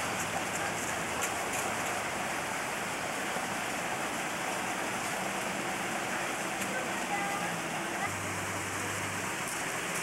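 Steady rush of falling water from a two-tier waterfall and its stream, an even hiss without a break. A faint low hum joins briefly about eight seconds in.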